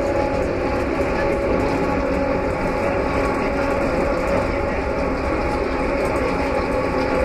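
Miami Metrorail train running on its elevated track, heard from inside the car: a steady rumble of wheels on rail with a steady hum over it.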